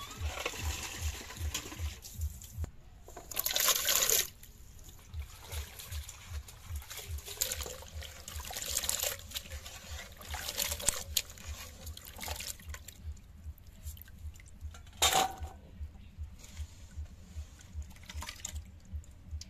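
Water sloshing and splashing in a metal pot as cut radish pieces are rubbed and washed by hand, with two louder splashes, about three seconds in and again about fifteen seconds in.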